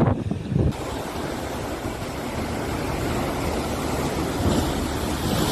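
Heavy storm surf: a steady rushing roar of large waves breaking, whipped by gale-force wind.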